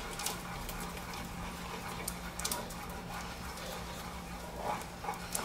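A wooden spoon stirring thick béchamel sauce in a stainless steel saucepan, giving faint scrapes and soft clicks against the pot over a steady low hum.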